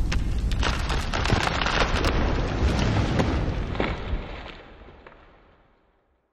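Logo-animation sound effect: a low rumble with scattered crackles and clicks, fading out about five seconds in.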